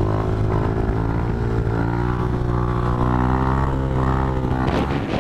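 Yamaha motorcycle engine running steadily while being ridden, its pitch holding nearly level.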